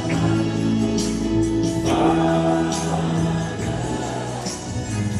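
Live gospel worship music: a choir holds long sung notes over a band, with a few sharp percussion hits.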